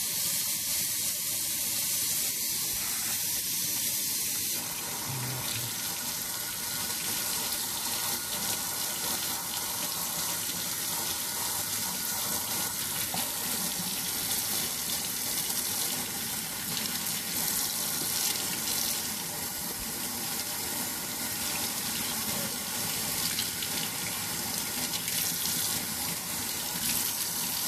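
Kitchen faucet running into a stainless steel sink while a whole gutted pompano is rinsed under the stream, water splashing over the fish and hands. The splashing grows fuller about four seconds in.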